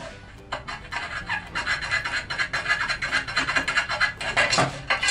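Tungsten-carbide-coated wire saw scraping against the ceramic tile as it is worked through a drilled hole. From about a second in there is a fast run of rasping strokes, louder toward the end.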